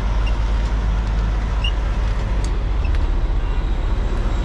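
Semi-truck's diesel engine running at low speed with a steady low rumble, heard from inside the cab.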